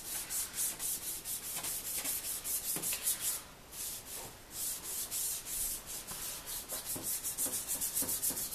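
Rain-X abrasive restoration pad wet-sanding a yellowed plastic headlight lens by hand, in quick back-and-forth strokes of about three a second, with a short pause about three and a half seconds in.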